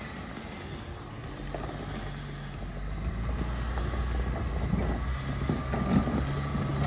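Jeep Wrangler engine running at low revs as the Jeep crawls up a rocky ledge, getting louder about halfway through as it climbs. Scattered crunches of the tyres on rock come in near the end.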